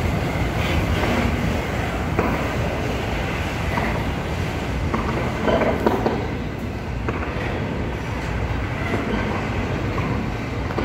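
Norfolk Southern intermodal freight train's double-stack container well cars rolling past: a steady loud rumble with sharp clicks from the steel wheels on the rails, swelling briefly about five and a half seconds in.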